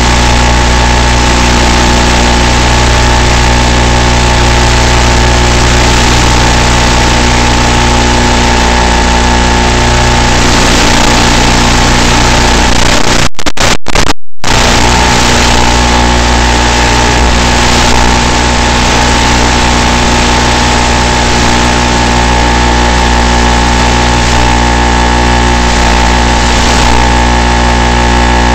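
Loud, steady electronic buzz from an analog FPV video receiver's audio channel, many fixed tones over a hiss and unchanged by the flight, cut by a few brief dropouts to silence about halfway through.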